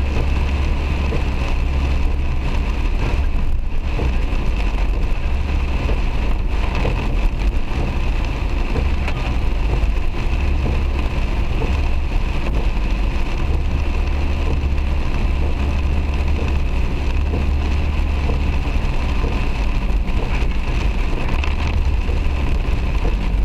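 Heavy rain pelting a moving car, heard from inside the cabin, over a steady low rumble of road and engine noise.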